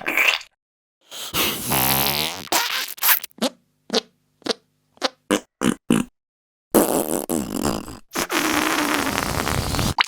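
A string of fart sound effects: a short one at the start, a longer one whose pitch glides, a quick run of about eight short pops, then two long noisy, sputtering ones.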